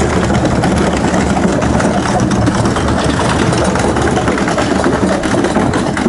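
Wheeled ice-cream chest freezer being pushed over paving tiles: a loud, steady rolling rumble and rattle from its small wheels.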